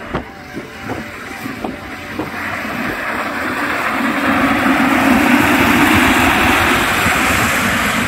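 Inflatable tubes sliding down a plastic-tile dry slide: a few light knocks, then a rushing, scraping noise that grows louder and holds to the end.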